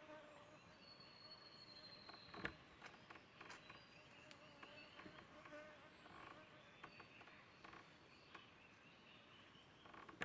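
Near silence: faint outdoor ambience of insects, with thin high whistles now and then, scattered small clicks and one louder knock about two and a half seconds in.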